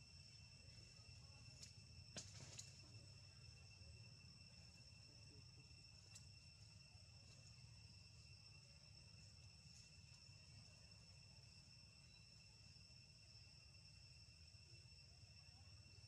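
Faint, steady insect chorus: a continuous high drone with no breaks, over a low rumble, with a few soft clicks about two seconds in.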